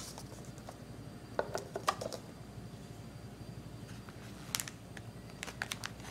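Handling of a paperboard gift box: light taps, clicks and scrapes of card as the sleeve is slid off and the inner box is set down and lifted. The taps come in small clusters about one and a half seconds in, around four and a half seconds, and near the end.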